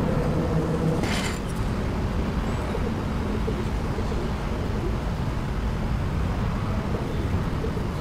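Steady low rumble of road traffic in the background, with a brief scrape about a second in.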